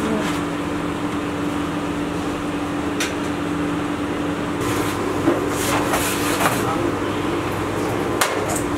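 Steady machine hum with a constant low tone, from kitchen equipment running. A few short metallic clinks, the last just before the end as the metal baking tray is slid out of the oven.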